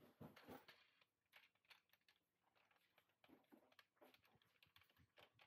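Near silence with faint, scattered clicks and taps from hands fitting small parts to a solar panel's frame, a few louder ones in the first second.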